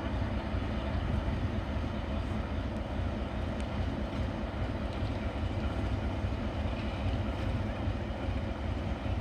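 Diesel engine of a ČSD T478 'Cecaňa' locomotive running steadily at low revs, a continuous low rumble.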